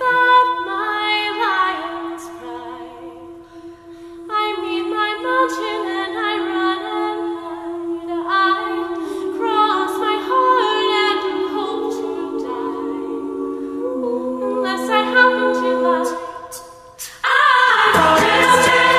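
Mixed-voice a cappella group singing: the ensemble holds a sustained chord under a moving lead line. Near the end, after a brief dip, the whole group comes in suddenly louder with a low bass part underneath.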